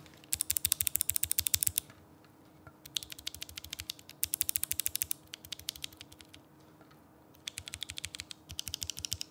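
Kailh Speed Bronze clicky mechanical keyboard switches pressed rapidly in several quick bursts. Each keystroke is a very light click.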